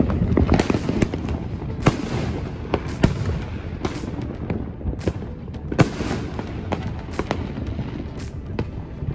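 Fireworks and firecrackers going off all around: a dense run of sharp cracks and bangs at uneven intervals over a steady rumble, with a few louder bangs standing out.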